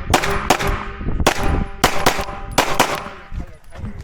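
Five pistol shots fired at an uneven pace during a defensive pistol stage, each followed by a short metallic ringing.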